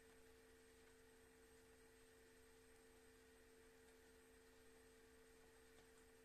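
Near silence: faint room tone with a steady electrical hum of a few thin, unchanging tones.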